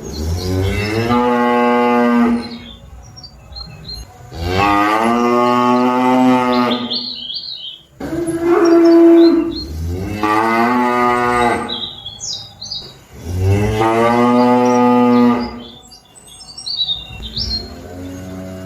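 Cattle mooing: four long, loud moos of a few seconds each in turn, then a fainter one near the end. Short high chirps come in the pauses between the calls.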